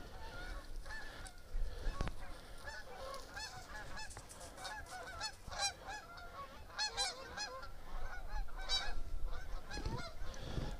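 A flock of Canada geese honking as it circles in, many short calls overlapping without a break.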